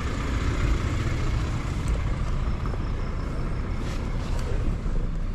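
Lexus LX500d's twin-turbo V6 diesel idling with a steady low rumble.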